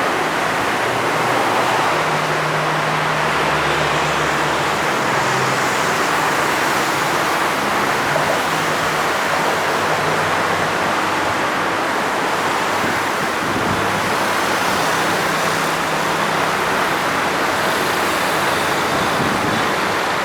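Diesel engines of heavy earthmoving machinery running steadily under a constant loud rushing noise, with a low engine hum that shifts in and out.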